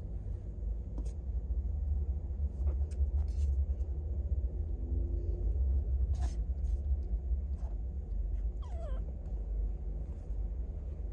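A British Shorthair–Ragdoll kitten gives one short mew falling in pitch, about nine seconds in. A steady low rumble and a few soft clicks run underneath.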